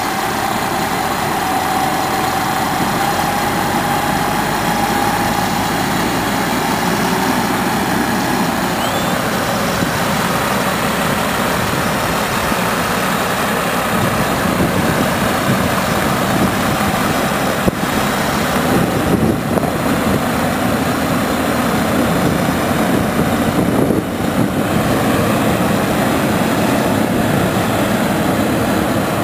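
Heavy diesel truck engines running steadily under load while a tandem-axle dump truck stuck in mud is pulled free by a wrecker; a little louder and rougher from about halfway through.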